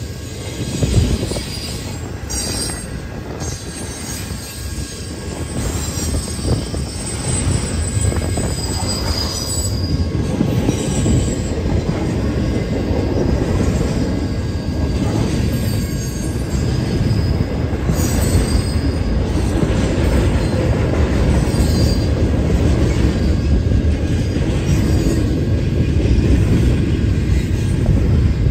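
Intermodal freight train cars rolling past: a continuous rumble of steel wheels on rail that grows steadily louder, with a few brief high wheel squeals.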